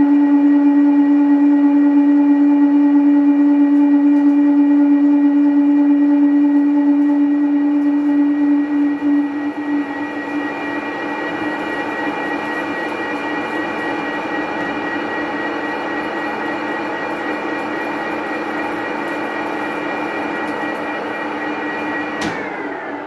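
Manual lathe single-point cutting a thread on a long 316 stainless steel bar. For the first nine seconds the tool rings with a strong steady humming tone, the harmonics the machinist points to where the bar is unsupported in the middle; it then fades, leaving a noisier running-and-cutting sound. Near the end a clunk is heard as the half nut is kicked out, and the lathe's running sound falls in pitch and dies away as the spindle stops.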